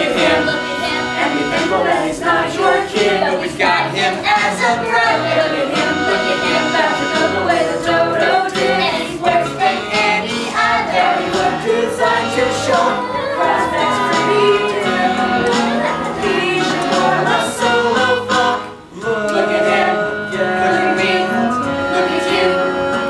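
A middle-school cast singing a musical-theatre number together with instrumental accompaniment. The sound dips briefly about three quarters of the way through.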